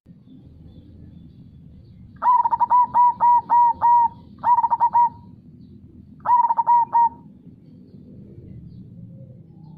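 Zebra dove (perkutut) cooing in three phrases of quick repeated notes, the first one the longest, over a steady low river rush.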